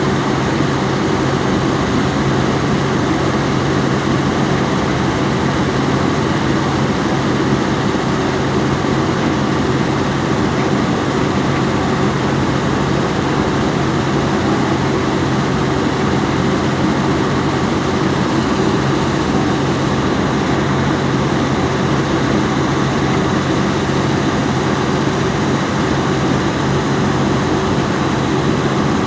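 Excavator's heavy diesel engine running steadily at an even, unchanging pitch.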